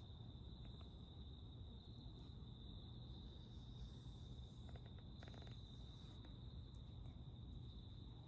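Faint, steady high-pitched trill over a low hum, with a few soft clicks around the middle.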